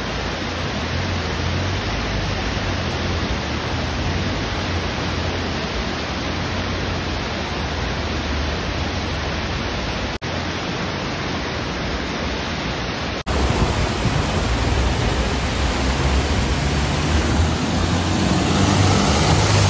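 Fast, shallow river water rushing over rocks, with 4x4 engines running low underneath. The sound breaks off briefly twice and is louder after the second break, with more engine rumble.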